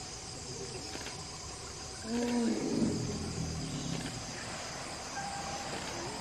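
Insects keep up a steady high chirring, with a brief louder pitched call about two seconds in.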